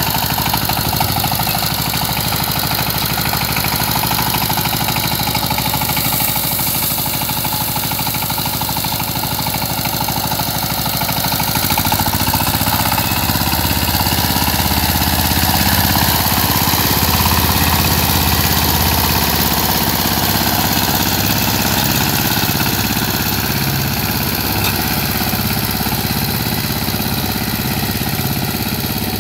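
Single-cylinder diesel engine of a two-wheel power tiller running continuously. About twelve seconds in its note turns deeper and louder as it comes under load, working the tiller through deep paddy mud and water.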